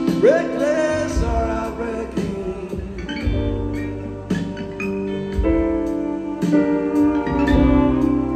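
Live band playing a slow ballad: guitar, upright bass and keyboards under long held notes, with a sung melody line.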